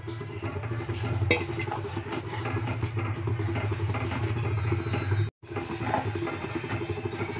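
Steel spatula stirring and scraping rice flour and hot water in a steel kadai as the flour is worked into a dough, over a steady low rumble. The sound drops out for a moment about five seconds in.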